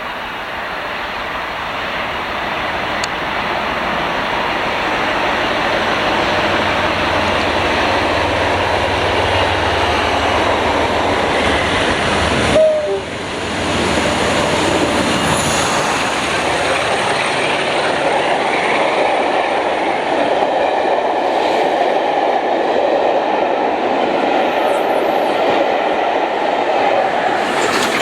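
A train running on the track, its noise building over the first few seconds, with wheels clattering over rail joints. About halfway through the sound breaks off suddenly and then carries on.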